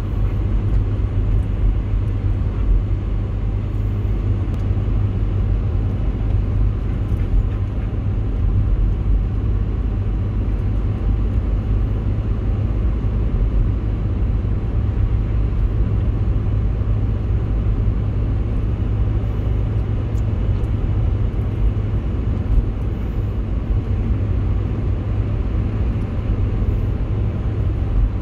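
Steady low rumble of a car's engine and tyres on a snowy road, heard from inside the cabin while driving.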